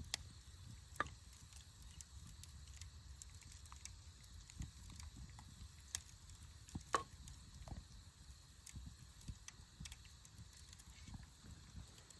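Faint, irregular small clicks and pops over a steady low rumble, the loudest pop about seven seconds in.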